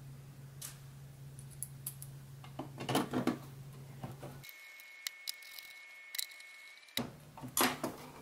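Small precision screwdriver turning machine screws down through a 3D-printed plastic case lid into threaded inserts, with scattered light clicks of the tool and screws and short rattles as the case is handled.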